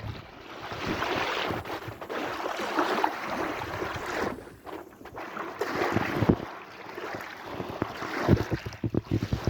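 Sea waves washing in and drawing back in a repeating rise and fall, with wind buffeting the microphone in low thumps near the end.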